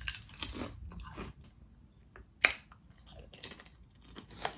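A person biting into and chewing honey butter potato chips, with irregular crunches, the sharpest about two and a half seconds in.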